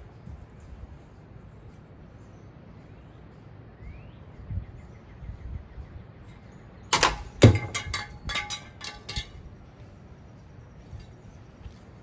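A ceiling fan face plate being smashed: one loud crash about seven seconds in, ringing briefly, then smaller knocks and clatters for about two seconds. A few faint bird chirps a few seconds in.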